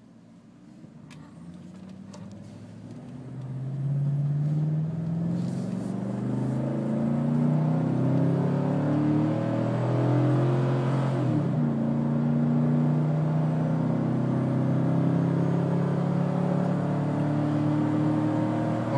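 5.3-litre V8 of a GMC Sierra 1500 pickup, heard from inside the cab, pulling hard under a heavy towing load of about 7,500 lb. The engine is quiet at idle for the first few seconds, then builds and climbs in pitch as the truck accelerates from a stop to highway speed at high revs. The pitch briefly dips at a gear change about eleven seconds in.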